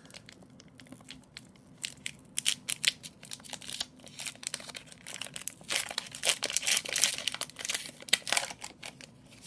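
Plastic wrapper of a hockey card pack being torn open and crinkled by hand: irregular crackling, busiest from about halfway in to near the end.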